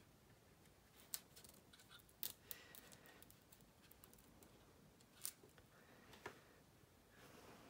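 Faint crackle and a few small sharp clicks of masking tape being pressed, smoothed and lifted by fingertips on a plastic scale-model fuselage.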